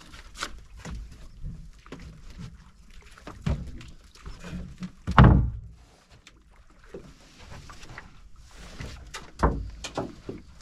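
Irregular knocks and thumps in a small open fishing boat, the loudest about five seconds in and another near the end, over wind and water noise.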